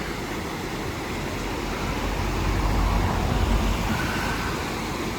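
Steady outdoor rushing noise, with a low rumble that swells about two seconds in and eases off again.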